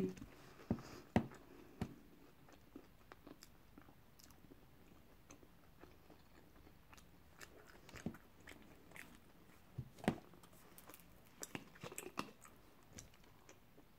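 Faint mouth sounds of a person chewing and eating a sub roll and a hash brown, with scattered short clicks and smacks. Near the end comes a cluster of small clicks as a plastic bottle cap is twisted open.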